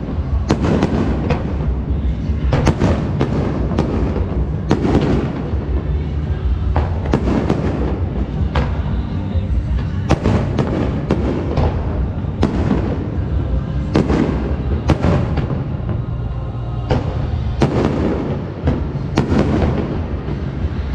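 Fireworks display: aerial shells bursting one after another, a sharp bang every second or so and sometimes several close together, over a continuous low rumble.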